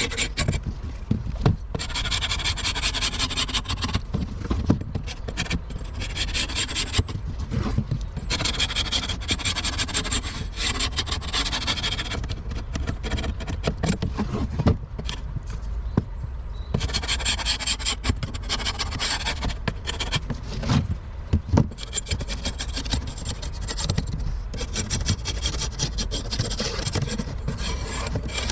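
Propolis and wax being scraped and brushed off a timber-framed metal queen excluder: quick, noisy rasping strokes of metal tools on metal and wood, played sped up.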